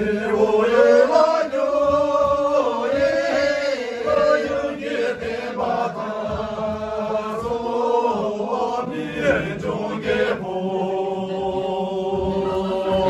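A group of men and women singing a slow Sherpa Shyabru dance song together in unison, in long, drawn-out held notes.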